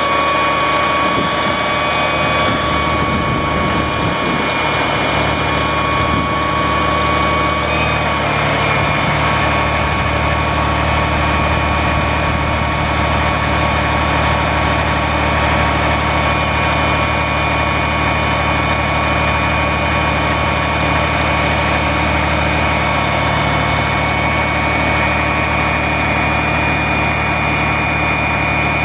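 Caterpillar C13 six-cylinder diesel engine of a Freightliner M2 truck running steadily at idle, with a steady high whine over it that partly fades about eight seconds in.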